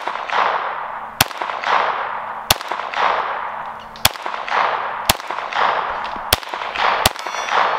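Six single shots from a small .25 ACP semi-automatic pocket pistol, fired about a second or a second and a half apart, each trailing off in echo.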